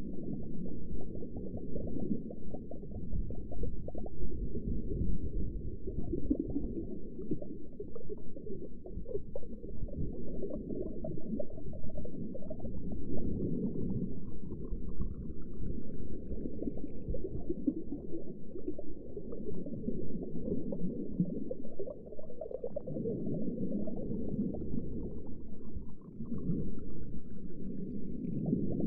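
Underwater ambience: a muffled, low bubbling rumble that swells and eases every few seconds. Two faint rising tones come in, one midway and one near the end.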